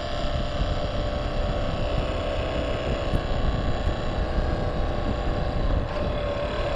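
Honda Super Cub JA07's single-cylinder engine running on the move, with wind rumbling on the microphone. The riders notice a strange noise from the engine, which the rider suspects comes from a screw that has come loose.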